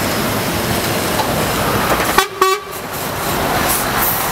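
Fast floodwater rushing in a swollen river, with two short vehicle-horn beeps just past halfway.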